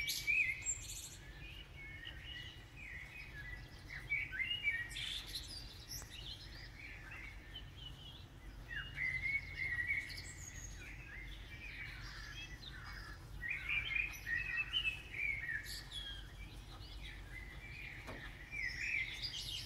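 Dawn chorus: Eurasian blackbirds singing, with a fluty, warbled phrase every four or five seconds and squeaky high flourishes, over a low steady rumble.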